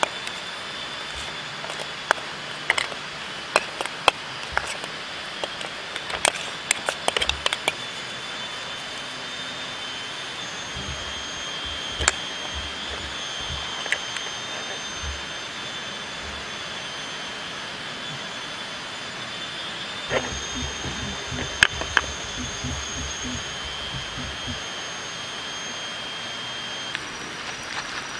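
A spoon clicking and scraping against a small metal pan as garlic is mashed into butter, with a run of sharp clicks in the first several seconds and more scraping and taps about twenty seconds in. Underneath runs a steady, high-pitched hum of forest insects.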